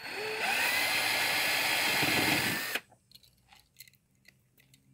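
Power drill drilling out a rivet in a diecast toy car's base with a small bit. It spins up with a rising whine, runs steadily for nearly three seconds, then stops suddenly, leaving a few light clicks of handling.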